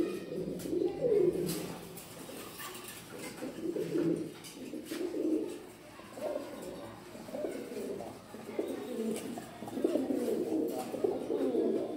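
Lakha fancy pigeons cooing in a cage, a string of low coos following one another every second or so.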